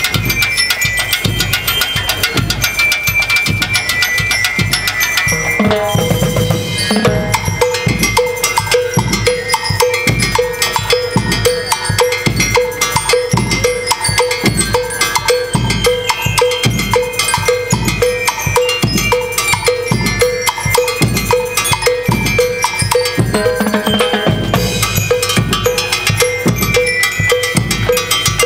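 School rhythm band (banda rítmica) playing: snare and bass drums with a drum kit keeping a dense, steady beat. About six seconds in the pattern changes to a regular accented stroke that repeats evenly.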